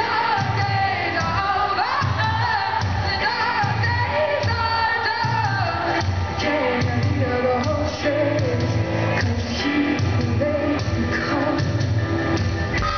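Live band music with a woman singing the lead vocal over a steady pulsing beat, recorded from the audience in a large venue.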